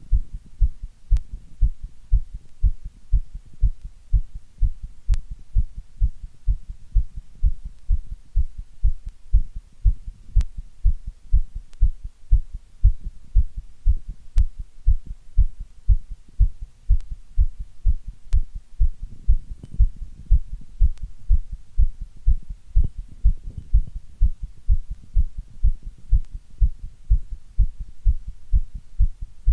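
Heartbeat: a steady, even rhythm of low thumps that goes on without a break.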